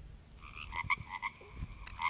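A ringtone preview playing from a Nokia 1600's small speaker: electronic tones start about half a second in and break into short repeated notes. There is a single key click near the end.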